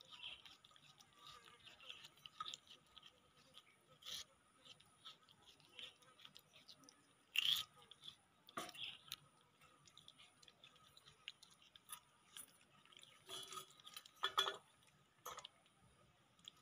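Baby macaques chewing and biting into melon: soft wet crunching and small clicks. A few louder sharp knocks come about halfway through and again near the end.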